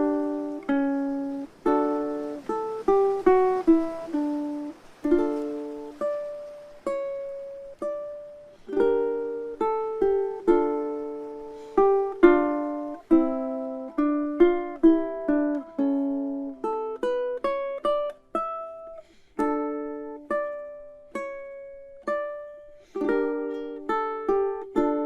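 Ukulele instrumental: a relaxed melody of plucked single notes and chords, each ringing out and fading before the next.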